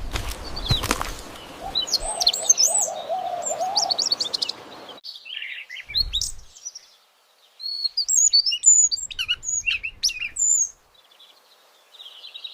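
Cartoon bird singing: quick high chirps and trills in two phrases, the first about two seconds in and the second from about seven and a half seconds, after a few sharp crunching clicks at the start.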